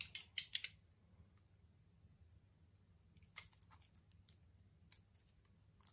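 Quiet handling of board-game packaging and cards: short crisp crackles and clicks just after the start and again about three and a half seconds in.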